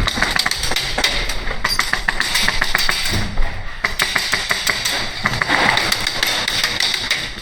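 Airsoft guns firing in fast runs of sharp clicks, with crisp impact snaps mixed in.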